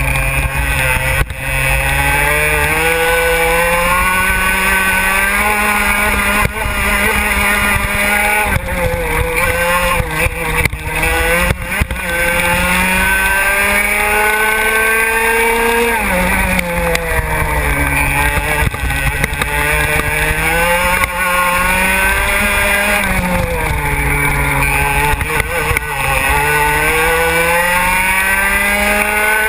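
125 cc two-stroke racing kart engine heard onboard at speed. Its pitch climbs steadily along the straights and drops sharply several times as the kart brakes for corners, with a few short knocks in between.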